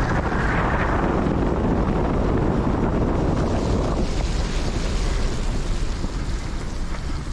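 Wind buffeting the microphone of a moving bicycle, with tyre noise on the wet path. The rushing sound is fuller while inside the concrete underpass and thins out about four seconds in, as the bike comes out into the open.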